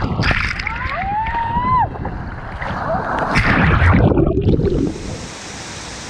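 Water rushing and spraying under a rider sliding down a mat water slide, heard close up from a camera riding along, with a short rising whoop from the rider about a second in. The rush is loudest about four seconds in as the ride ends, then gives way to a steadier wash of water.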